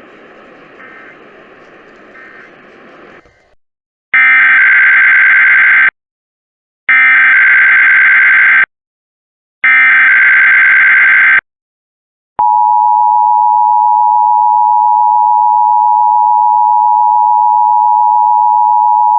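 Emergency Alert System tones: three loud bursts of SAME header data, each just under two seconds long with short gaps, then after a brief pause the steady two-tone EAS attention signal (853 and 960 Hz) sounding continuously. Together they open an EAS required monthly test message. Faint background audio cuts off before the first burst.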